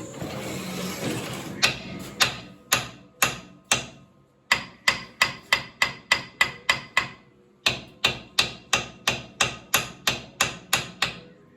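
Hammer blows on the stuck front axle hub of a Kubota L3400DT tractor, driving it off the spindle. A short scraping noise comes first, then about two dozen sharp metal strikes in three runs with short pauses between. Each strike rings briefly.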